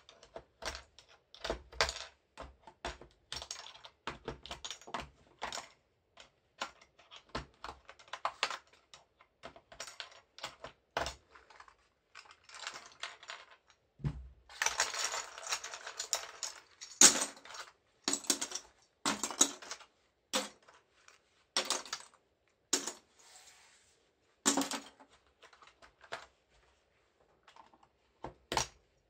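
Plastic keycaps being prised off a computer keyboard with a metal tool: a run of sharp clicks and snaps as each cap pops off its switch, with loose caps clattering onto the table. About halfway there is a denser rattle lasting a couple of seconds, then more widely spaced snaps.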